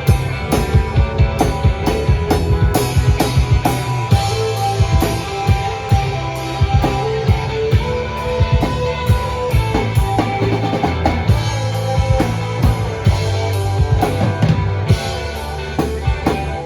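Band playing an instrumental passage with no vocals: a drum kit keeps a steady beat with regular cymbal strokes over a bass line and held melodic notes.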